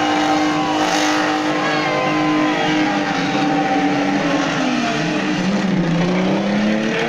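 Chevrolet Opala engine revving hard and held high while the car spins donuts, tires squealing; the engine note drops and then climbs again near the end.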